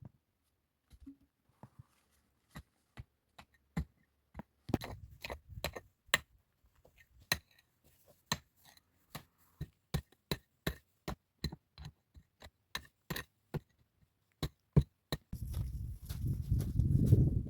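A run of sharp knocks or cracks, coming about two or three a second, then a low rushing noise swelling near the end.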